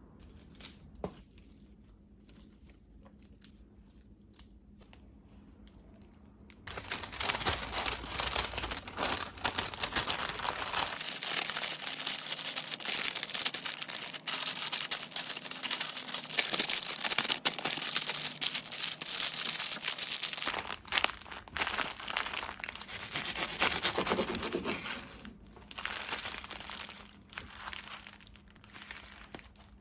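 Wrapping material crinkling and rustling as it is handled. It starts suddenly about six seconds in, runs without a break for nearly twenty seconds, then continues in short spells, with a few faint ticks before it.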